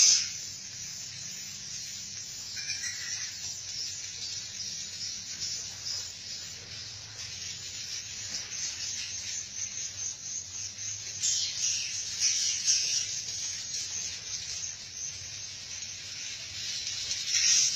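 Edible-nest swiftlets twittering, a dense high-pitched chittering that swells louder about eleven seconds in and again near the end.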